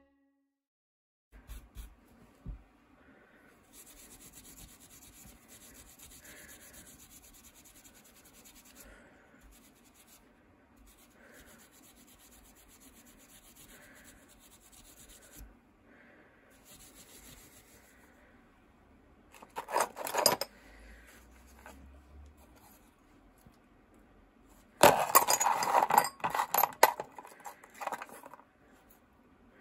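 A cloth rubbing over a vintage Dunlop M15 rubber bicycle saddle in slow, repeated strokes. About two-thirds of the way through there is a brief loud rattle, and near the end small metal saddle-clamp parts and nuts clink loudly against each other in a plastic tub.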